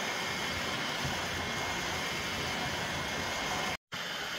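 A 3D printer running mid-print: a steady whir of its fans and motors with a faint high whine. It cuts out for a split second near the end, then the same steady whir comes back.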